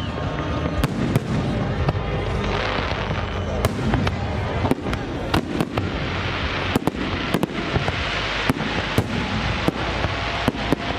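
Aerial fireworks display: shells bursting in rapid, irregular succession, many sharp bangs over a continuous low rumble.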